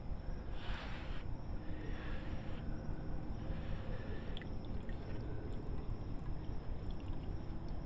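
Water pouring and trickling through a pond sump filter as the sump pump circulates it, over a steady low hum, with a brief louder rush of splashing about a second in.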